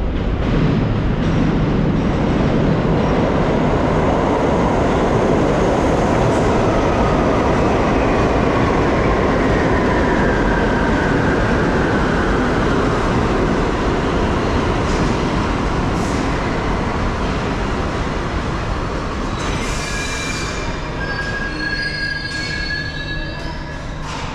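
R62A subway train pulling into an underground station, its wheels and running gear rumbling loudly, with a whine that falls in pitch as it slows. Near the end it comes to a stop with high, steady squeals.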